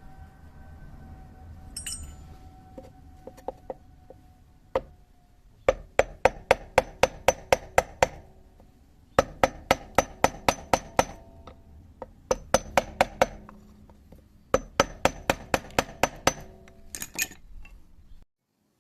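A hammer tapping on metal in four runs of quick, ringing strikes, about four a second, with short pauses between the runs; a few single taps come before the first run.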